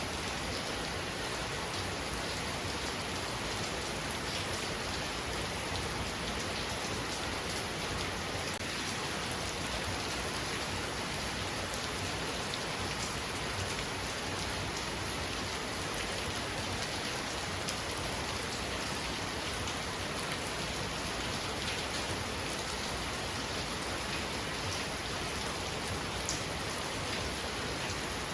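Heavy rain falling steadily, a dense, even hiss of rain on surfaces that does not rise or fall.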